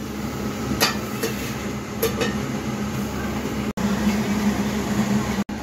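Ground onion paste frying in ghee in a pan, with a steady sizzle as a spatula stirs it, and a few sharp knocks of the spatula against the pan. A steady low hum runs underneath.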